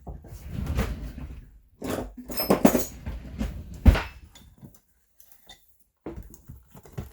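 Metal tools and hardware being handled at a workbench vise while working a bent rivet out of a leather tool belt: rustling and clatter with a few ringing metal clinks, one sharp knock about four seconds in, then a few quieter taps near the end.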